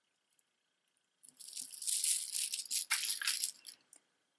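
Shell pieces of a strung shell necklace rattling and clattering against each other as the necklace is handled and set down. The clatter starts about a second in and lasts about two and a half seconds.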